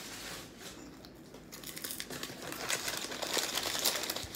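Paper food wrapping crinkling and rustling as it is handled, in many short crackles that grow louder over the last couple of seconds.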